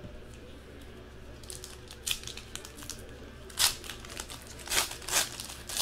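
Foil wrapper of a 2015 Panini Prizm football card pack crinkling and tearing as it is ripped open by hand, in several short crackles starting about a second and a half in, over a low steady hum.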